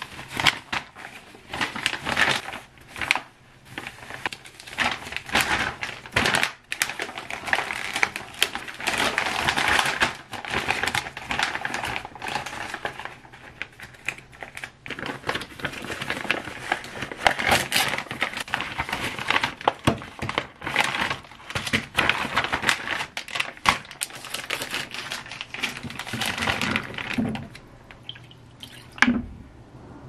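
Plastic packaging crinkling and rustling as a meal-kit pouch and its clear inner bags are handled and opened, with many small clicks. It quiets near the end, then a single knock.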